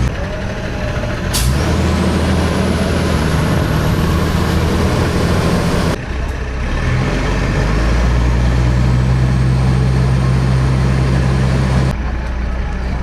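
Safari bus diesel engine running under the passengers, with a sharp air-brake hiss about a second in, then a whine rising in pitch as the bus pulls away and picks up speed, twice over.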